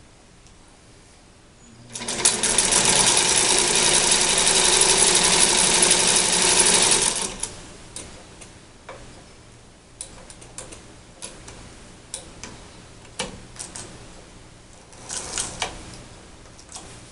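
Singer 99K sewing machine stitching through a double layer of denim for about five seconds, starting about two seconds in and stopping abruptly. Scattered light clicks and knocks follow after it stops.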